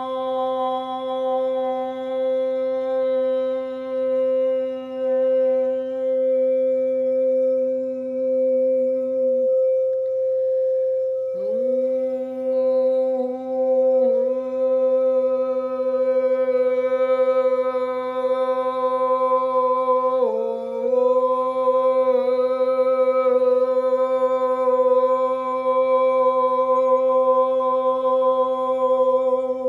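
Frosted quartz crystal singing bowl ringing in one steady sustained tone as a wand is circled around its rim, while a woman hums a low held note an octave below it. Her note breaks off about ten seconds in, slides back up into pitch a couple of seconds later and wavers briefly twice more.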